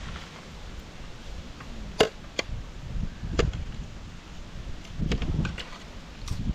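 Several separate sharp knocks, the loudest about two seconds in, over a low rumbling background.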